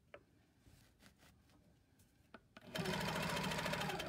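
Handi Quilter longarm quilting machine starting to stitch about two and a half seconds in: a rapid, even run of needle strokes over a steady motor hum. A few faint taps come before it.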